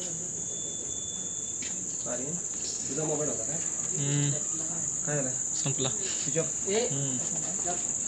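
Crickets chirring in one steady high-pitched drone, with indistinct voices of people talking in the background from about two seconds in.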